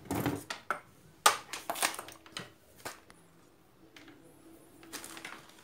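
Scattered handling knocks and clicks, about six in the first three seconds, the loudest about a second and a quarter in. After that it goes quieter, with a faint steady hum.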